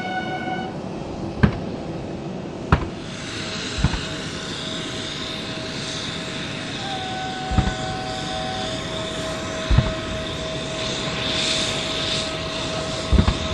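Ceremonial gun salute: field guns firing single booming shots, six in all, spaced one to four seconds apart, over the steady hum and whine of an aircraft engine.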